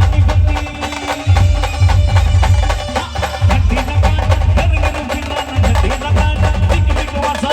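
Maharashtrian brass band playing a dance tune: a melody line over a heavy, driving drum beat, with groups of loud bass-drum strokes about every two seconds.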